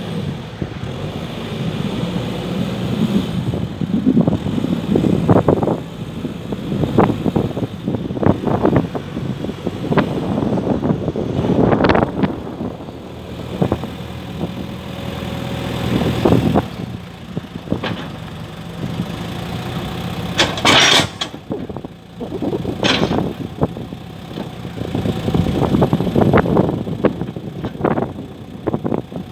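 Volvo BL71 backhoe loader's diesel engine running, its sound swelling and easing every few seconds, with knocks now and then and a short hiss about two-thirds of the way through.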